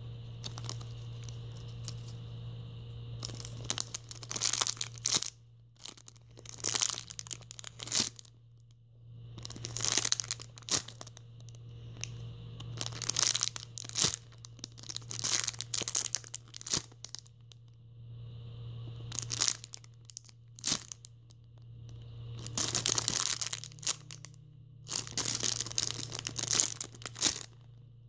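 Clear plastic packaging bag crinkling as a hand squeezes and handles the squishy sealed inside it, in repeated bursts every second or two starting a few seconds in.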